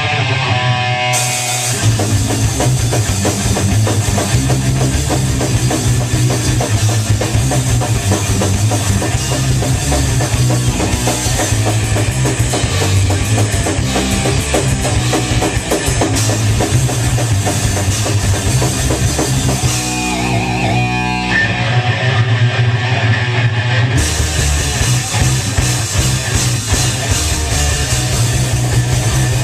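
A crossover thrash metal band playing loud and fast on distorted electric guitar, bass and drum kit. The full band kicks in about a second in. About 20 seconds in, the cymbals and low end drop out for a few seconds under a lone riff, then the full band comes back.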